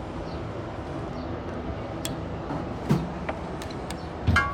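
Metal parts and hand tools knocking and clinking, ending in a louder clang that rings briefly, over a steady low background rumble.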